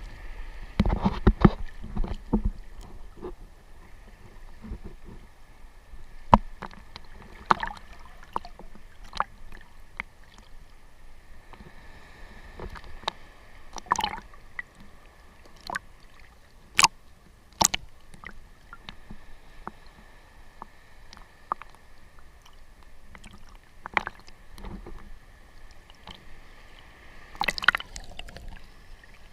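Seawater sloshing and splashing close around a surfer's GoPro, with scattered sharp splashes and knocks at irregular intervals, two of the sharpest a little past halfway.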